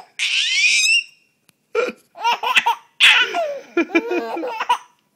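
Baby boy laughing hard: a shrill squeal that falls in pitch in the first second, then after a short pause a string of quick, high-pitched laughs.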